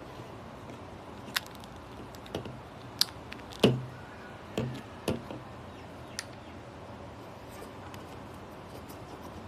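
Several sharp clicks and knocks, irregularly spaced over a steady hiss, the loudest a knock with a short low ring about four seconds in. Nothing is heard after about six seconds except the hiss.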